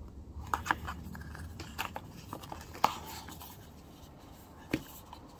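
Hands handling a paperboard phone accessory box and its insert: soft rustling and scraping of card with a few sharp clicks, the loudest about three seconds in.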